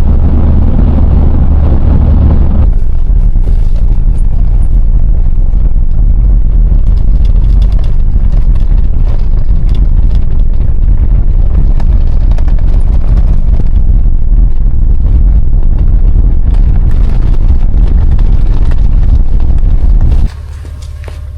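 A vehicle on the move: a loud, steady low rumble that starts and cuts off abruptly. It carries extra hiss in the first few seconds.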